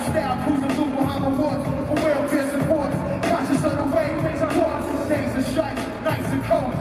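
Live hip hop music heard from the audience: a rapper performing into a microphone over a band with electric bass, loud and continuous.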